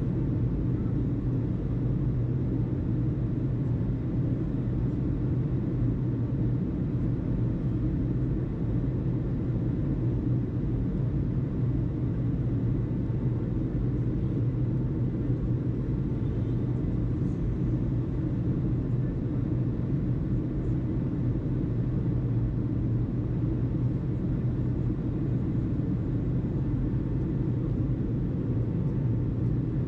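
A steady low rumble with a constant hum in it, unchanging throughout.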